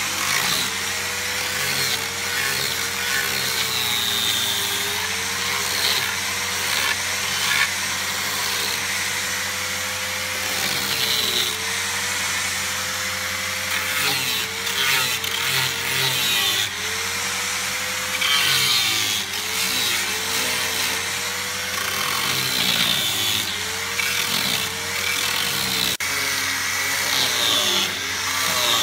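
Handheld trim router running at high speed and cutting into the edge of a wooden panel. Its whine sags in pitch again and again as the bit takes load, then climbs back.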